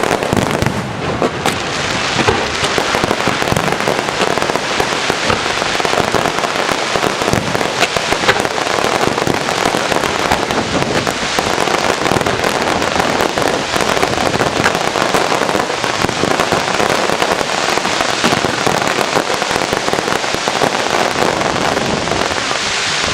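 Fireworks crackling, a dense, unbroken stream of rapid sharp pops.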